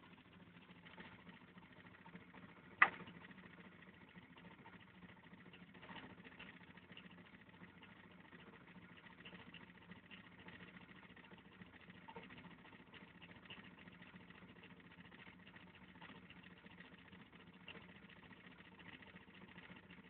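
Small reed-switch magnet motor running with a faint steady hum, with one sharp click about three seconds in.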